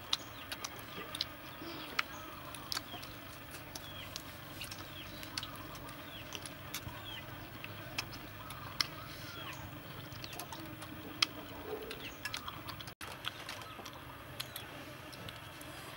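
Outdoor ambience of birds chirping in short, falling calls, with scattered sharp clicks throughout.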